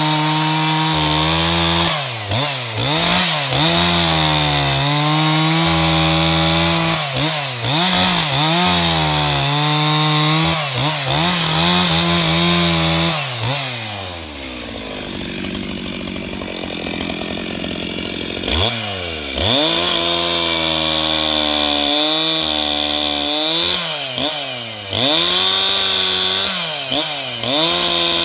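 Stihl MS 361 two-stroke chainsaw cutting red eucalyptus, its engine revving up and down over and over as it works. About halfway through the revs fall away to a lower, rougher running for about five seconds, then climb and swing again.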